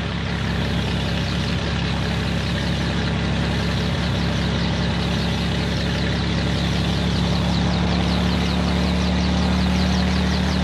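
Sikorsky H-34 search-and-rescue helicopter running, a steady low engine drone with a fast beating from the rotor. It grows slightly louder toward the end as the helicopter lifts off.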